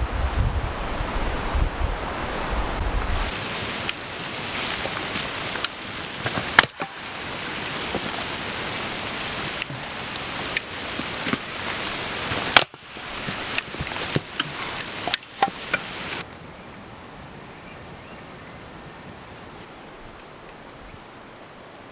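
Wind-driven rain making a steady hiss, with gusts buffeting the microphone in the first few seconds. The sound breaks off and changes abruptly a few times, with sharp clicks, and settles into a quieter, even hiss for the last several seconds.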